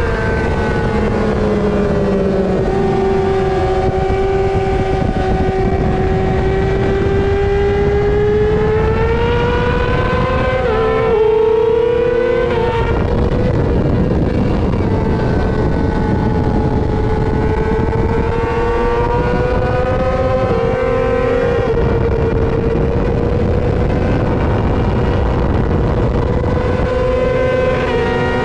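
Yamaha R6 inline-four sportbike engine at high revs under race throttle, its pitch sliding down and climbing again, with a few abrupt drops as it shifts up while accelerating onto the straight, over heavy wind rush.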